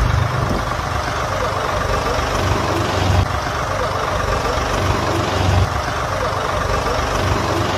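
A motor vehicle's engine idling with a steady low rumble, under a continuous rush of outdoor noise.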